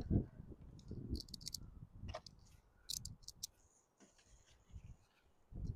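Scattered light clicks of small objects being handled, with wind rumbling on the microphone.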